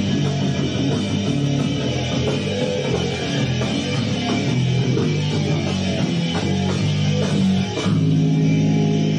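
Rock band playing without vocals: electric guitar, bass guitar and drums, with regular drum hits. A little before the end the band lands on a louder, held chord.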